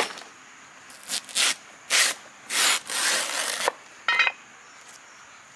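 Large fresh banana leaves rustling and rubbing as they are handled and spread out: a few short swishes, then a longer one lasting about a second. A brief squeak follows about four seconds in.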